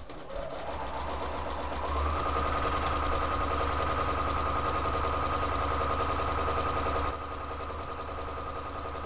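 Electric sewing machine stitching a quarter-inch seam along a fabric square. Its motor whine rises as it gets up to speed over the first two seconds, then it runs steadily, a little quieter from about seven seconds in.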